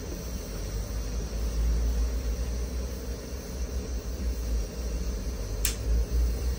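Steady low rumble of workshop background noise, with one short sharp click near the end as the pliers meet the small copper knob.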